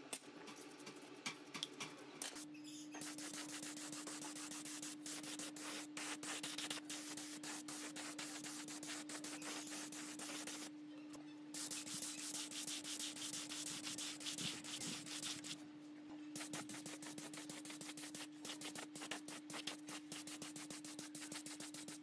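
A bristle brush scrubbing in a metal tray for about two seconds, then paint being sprayed: a steady hiss in three long passes with two short pauses, about eleven and sixteen seconds in, over a steady hum.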